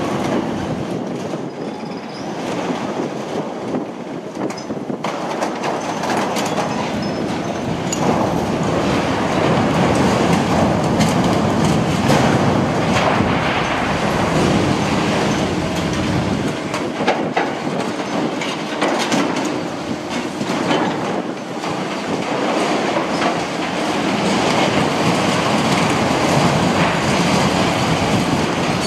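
Liebherr 954 demolition excavator tearing and crushing a steel-framed roof: a continuous din of clanking, grinding and scraping metal and breaking concrete over the running machine.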